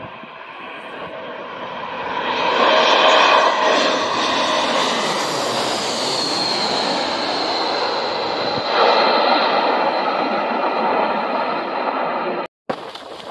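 Twin-engine jet airliner passing low overhead. Its engine noise builds, peaks as it goes over, and a high whine drops in pitch as it passes. The sound cuts off abruptly near the end.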